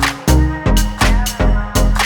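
Electronic dance music with a steady four-on-the-floor kick drum and bass, a little over two beats a second, under sustained synth tones, without vocals.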